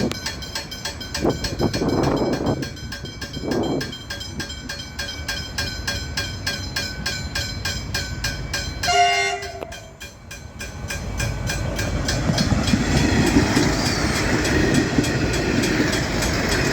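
Level crossing bells ringing steadily while a diesel railcar sounds its horn once briefly about nine seconds in. Then the railcar approaches and runs through the crossing with a rising rumble of engine and wheels.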